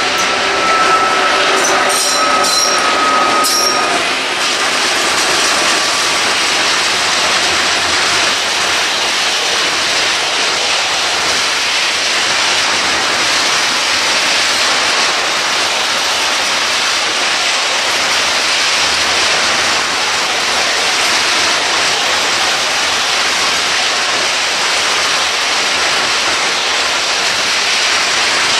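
Freight train of loaded hopper wagons rolling past behind a class 232 diesel locomotive. The wheels squeal with a high, slowly falling tone and a few clicks over the first few seconds. After that comes a steady rushing rolling noise.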